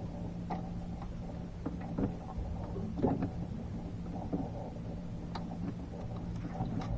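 A boat motor hums steadily at an even pitch, with scattered small clicks and knocks over it.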